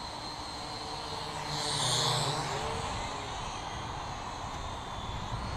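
Syma X8W quadcopter's motors and propellers whining in flight, swelling louder for about a second around two seconds in as it comes closer.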